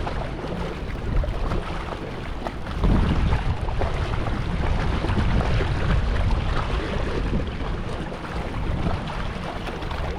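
Wind buffeting the microphone over the rush of water from a moving boat, a steady noisy rumble with no distinct engine note.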